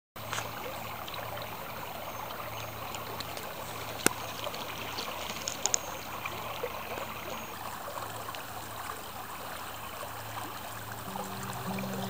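A small stream trickling steadily over rocks, with one sharp click about four seconds in and a few more clicks a second and a half later. Guitar music comes in near the end.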